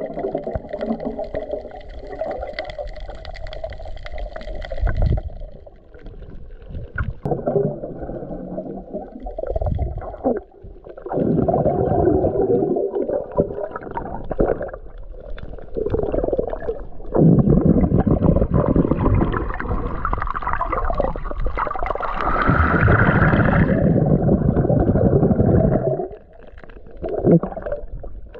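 Underwater gurgling and bubbling picked up by a submerged camera, coming in surges a few seconds long with short lulls between them.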